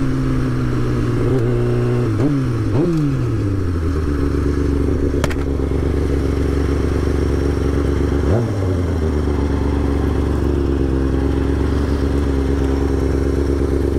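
2005 Kawasaki ZX-6R 636's inline-four engine as the bike slows down: two quick rev blips around two to three seconds in, then a low steady idle with one more short rev blip about eight seconds in.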